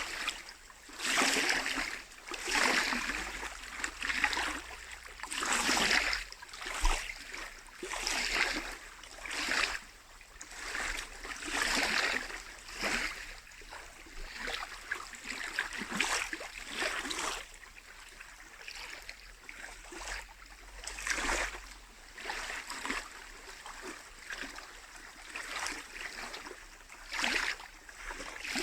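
Small lake waves lapping and splashing at the shore, one wash every second or two in an uneven rhythm.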